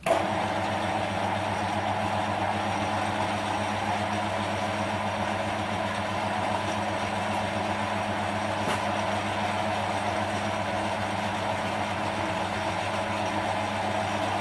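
A small metal lathe's motor running steadily with an even hum, switched on right at the start.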